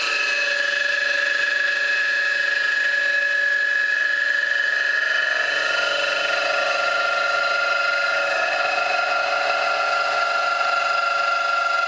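An 80 mm face mill skimming a bowed aluminium plate, with a steady high ringing tone that shifts in pitch about six seconds in. This is chatter: the owner puts the vibration down to the plate not sitting down properly on the table.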